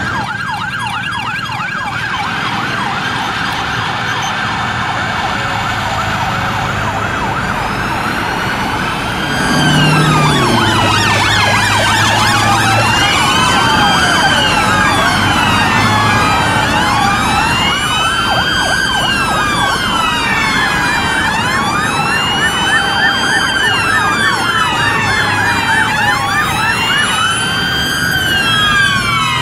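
Several police sirens sounding at once: a rapid yelp for the first several seconds, then, about nine seconds in, overlapping slow wails rising and falling out of step with each other, and the sound gets louder at that change.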